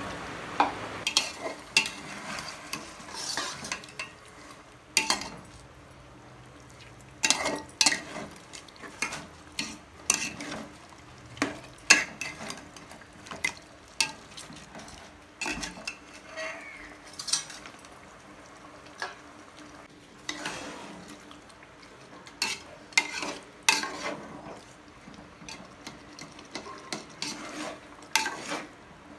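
A metal spatula stirring chicken, onion, tomato and curd in a metal pot on a gas stove, scraping and clinking against the pot's sides and bottom at irregular intervals, over a faint sizzle of the masala frying.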